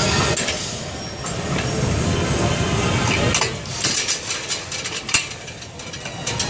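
Gym background music playing, with a cluster of sharp knocks and clanks about three to five seconds in.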